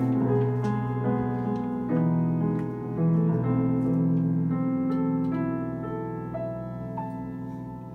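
Grand piano playing held chords and melody notes in a jazz piece, slowly growing quieter toward the end.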